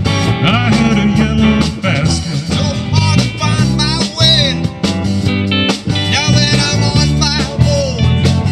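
Live rock band playing: electric guitars over bass and a drum kit, with a lead guitar bending and sliding notes. No words are sung.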